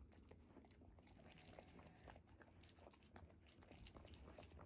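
Siberian husky puppy faintly crunching and chewing raw eggshell, a string of small irregular clicks.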